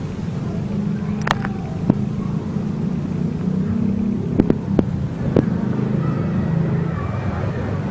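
A steady low engine-like hum, with a handful of sharp clicks and crackles as the foil sachet of engine treatment is handled, the first about a second in and a cluster around the middle.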